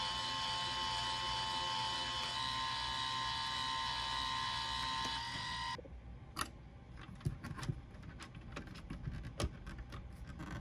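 Small LEGO electric motor driving a plastic gear-reduction train that swings a model railroad bridge on a 56-tooth Technic gear: a steady mechanical whine with a slight shift in pitch along the way. About six seconds in it stops abruptly, leaving only a few faint clicks and taps.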